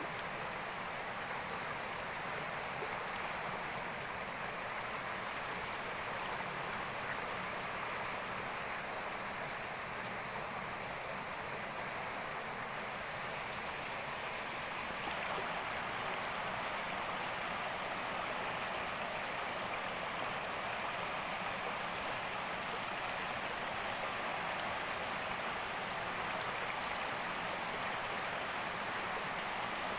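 Steady rushing of water, an even hiss with no distinct splashes or tones, rising slightly in level about halfway through.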